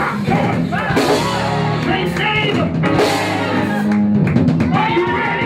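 Live church band playing upbeat gospel music with a drum kit, while a voice sings or chants over it.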